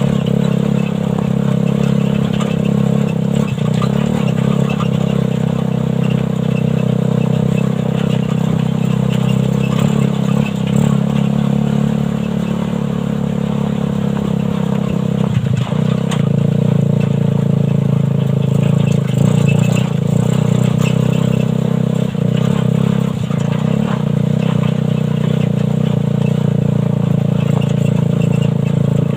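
Suzuki Satria FU 150cc single-cylinder four-stroke motorcycle engine driving a homemade buggy at a steady speed, with rattles and clicks from the frame. Its engine speed dips briefly about halfway through, then picks up again.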